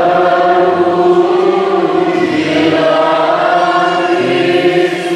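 Choir and congregation singing the response to the Gospel reading at Mass, in long held notes.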